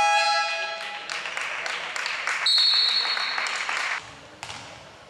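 Crowd noise in a basketball hall, with spectators cheering and clapping. A short horn-like blast sounds at the start, and a referee's whistle is blown once for about a second and a half near the middle. The crowd noise then stops suddenly, leaving quieter hall sound with a ball bounce.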